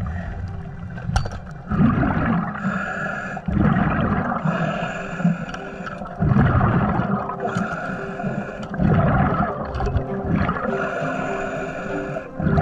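Diver breathing underwater through a compressor-fed regulator: a hissing draw of air alternates with a rush of exhaled bubbles, a breath every two to three seconds.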